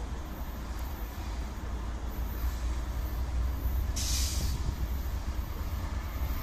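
Distant freight train rumbling steadily as it moves, with a short hiss of air, like an air brake venting, about four seconds in.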